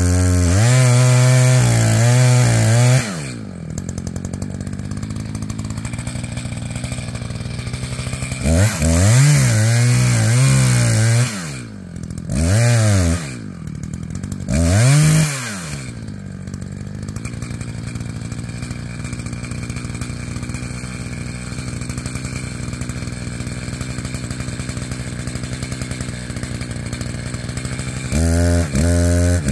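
Two-stroke chainsaw cutting into a dead ponderosa pine. It runs at full throttle for about three seconds, drops to idle, cuts again, gives two short blips of the throttle, then idles steadily for a long stretch before speeding up again near the end.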